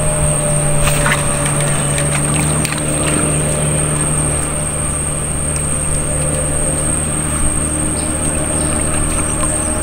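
Small wooden river boat's engine running steadily at an even speed, with a thin high whine over it.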